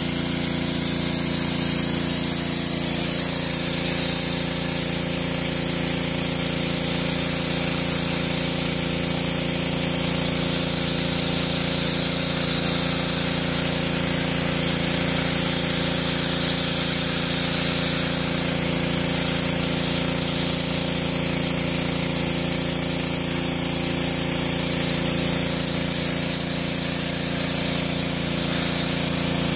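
Pressure washer running steadily: the pump hums under the hiss of its high-pressure spray jet hitting stone paving.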